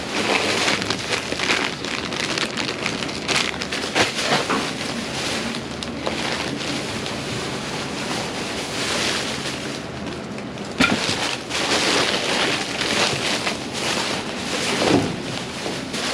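Steady rain falling and wind buffeting the microphone during a tropical storm, with a few sharp knocks, one about four seconds in and a louder one near eleven seconds.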